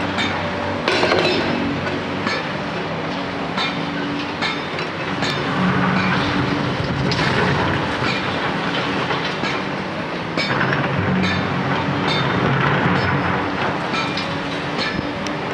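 Diesel engine of a Hyundai crawler excavator running under load, swelling twice, amid irregular metallic clanks and knocks of steel tracks, bucket and concrete rubble.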